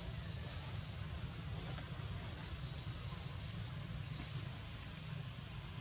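A steady, high-pitched chorus of insects, unbroken throughout, with a low rumble underneath.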